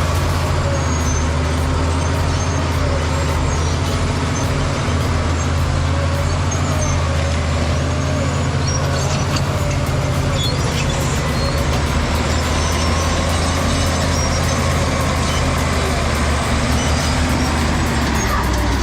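Heavy diesel engine of large machinery running steadily, a low, even drone.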